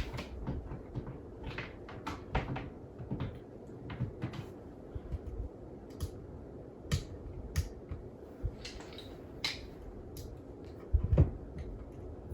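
Irregular clicks and knocks of a wall lamp being handled and connected by hand, with a few louder thumps near the end.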